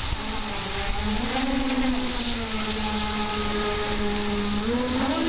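An RC boat's twin brushless outrunner motors whining as it runs at speed across the water. The pitch climbs about a second in, eases off, then climbs again near the end as the throttle changes.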